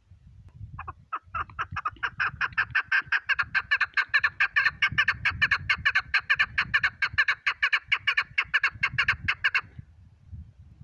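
Chukar partridge calling: a long, fast run of repeated clucking notes that builds up over about a second, goes on steadily for about eight seconds, and stops abruptly near the end.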